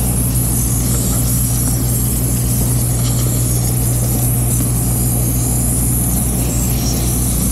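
Handheld steam cleaner hissing as it jets steam onto a rubber cab floor mat, over a loud, steady low hum.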